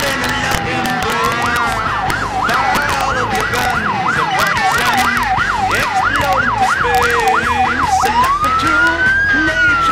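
Emergency vehicle siren, loud: a falling wail, then a fast yelp warbling about two to three times a second, then a slow rising and falling wail near the end. Background music plays underneath.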